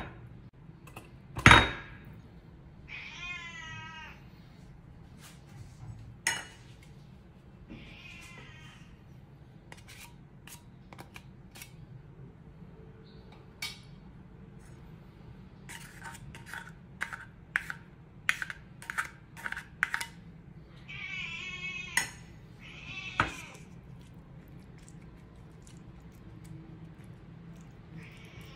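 A cat meowing about five times, each call about a second long, while a plastic spoon clicks against a ceramic bowl as wet cat food is flaked, with a quick run of taps in the second half. A sharp knock about a second and a half in is the loudest sound.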